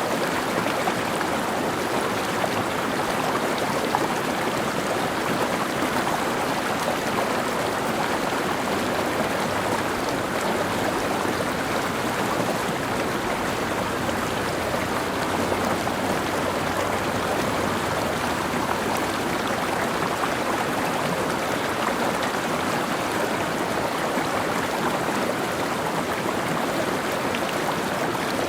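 Mountain stream running over rocks: a steady, unbroken rush of flowing water.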